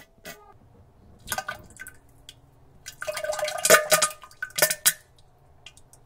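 Wet fart and diarrhea sounds: a few short wet sputters, then a longer, louder sputtering fart about three seconds in, and two or three more short splats near the end.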